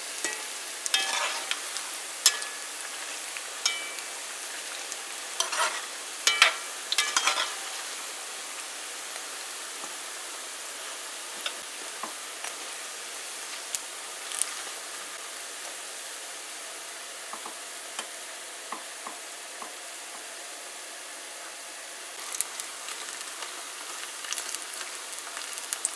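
Vegetable pakoras deep-frying in hot oil in a metal pot: a steady sizzle. A metal slotted spoon clinks and scrapes against the pot as they are turned, mostly in the first several seconds and again near the end.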